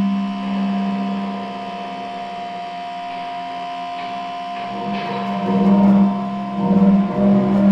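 Experimental prepared-guitar music: a steady amplified drone on one low pitch with a few higher held tones above it. It thins out in the middle, then swells again from about five seconds in with wavering, warbling tones.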